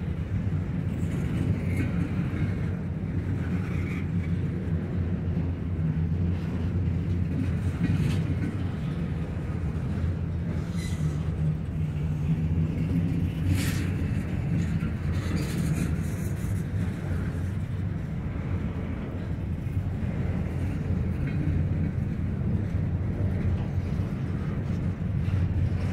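Double-stack intermodal freight train rolling past: a steady low rumble of steel wheels on rail from the loaded well cars, with a brief sharp sound about halfway through.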